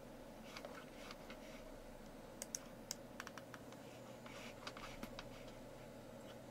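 Faint, scattered clicks of a computer keyboard and mouse at the desk, in small clusters, over a low steady hum.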